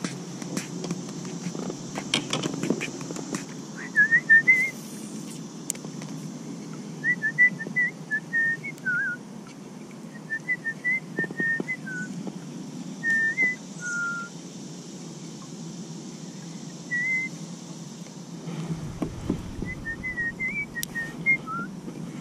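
A person whistling a tune in short choppy phrases of quick notes, with pauses between phrases, over a steady low rush of water and wind. A few light clicks near the start come from handling the fishing rod and reel.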